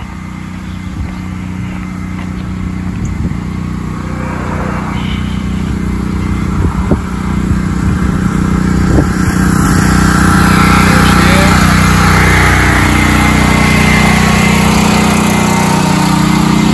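Portable gasoline generator engine running steadily while powering a whole house's circuits, growing louder as it is approached. Two light knocks come midway.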